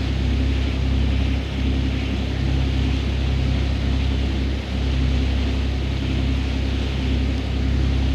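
Boat engine running steadily, with a low hum over a steady hiss. The small dips in loudness fit a boat trolling slowly on the sea.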